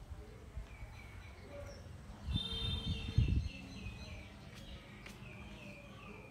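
A bird chirping: a quick run of short, evenly repeated high chirps, each falling in pitch, starting about two seconds in, with fainter chirps before. A few low thumps come at the start of the run.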